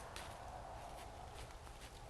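Faint, irregular clicks and rustles over a steady background hiss and low rumble.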